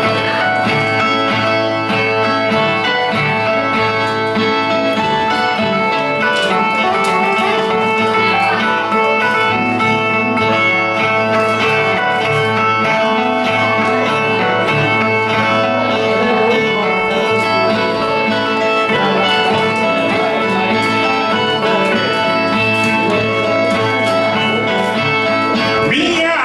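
Brazilian ten-string viola playing a steady, continuously plucked baião interlude between the sung stanzas of a repente cantoria.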